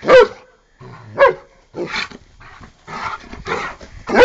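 Giant Schnauzer play-barking and growling. Two sharp barks come about a second apart at the start, then a stretch of rough, rapid growling, and another loud bark near the end.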